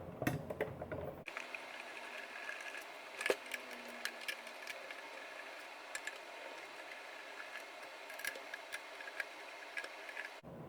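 Faint scattered clicks and small taps of hand tools and plastic parts as the front panel of a hot air station is taken off. A sharper click comes about three seconds in.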